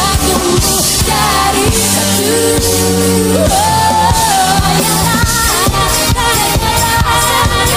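Women's voices singing an Indonesian pop song over a band with drums, holding long notes and jumping up to a higher held note about three and a half seconds in, with harmony voices above.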